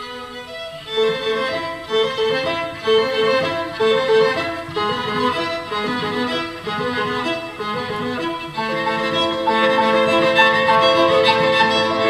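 Piano trio of grand piano, cello and violin playing a classical piece. Quick repeated short notes begin about a second in. About two-thirds of the way through, the music swells into a fuller, louder passage of held notes.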